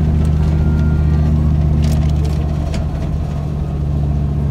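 Motor vehicle on the move: a steady low engine drone with road noise.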